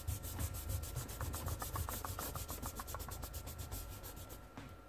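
Eraser rubbing on a kraft-paper sketchbook page in quick back-and-forth strokes, about six a second, rubbing out the pencil guidelines under an inked drawing. The rubbing dies away shortly before the end.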